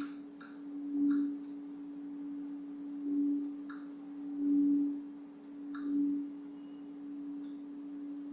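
A tuned metal healing pipe struck again and again, ringing one steady, pure tone with no pause between strikes. It swells with each strike, about four times over these seconds, and each strike starts with a faint metallic tick.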